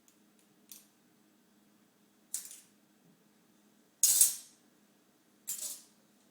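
Metal spoons clattering into a pile, four separate clatters with the third the loudest.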